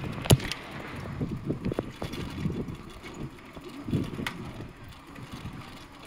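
Bicycle riding noise: low rattling and rumble of the bike over the path, with wind on the microphone. A sharp knock about a third of a second in and a smaller one around four seconds.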